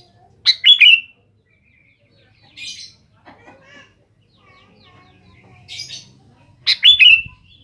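Sooty-headed bulbul calling: two loud bursts of quick whistled notes that drop in pitch, about a second in and again near the end, with softer raspy notes and faint chirps between.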